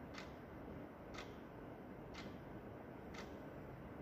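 Quartz wall clock ticking, one short tick of the second hand each second, four ticks in all, over a faint steady hiss.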